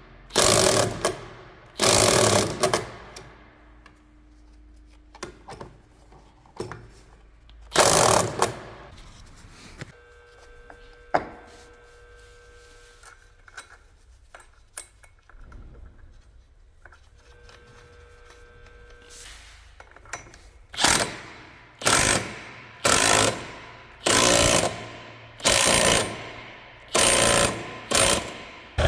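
A power tool run in repeated short bursts. They come irregularly at first, then about once a second near the end.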